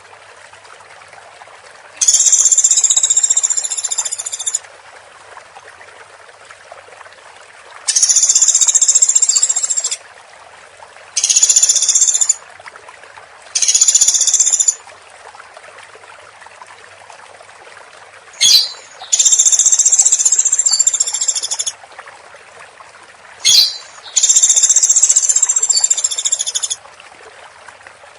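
Woodpecker calling in long, rapid, high-pitched rattling bursts: six bursts of one to three seconds each, separated by pauses of a few seconds, with a short sharp click just before each of the last two.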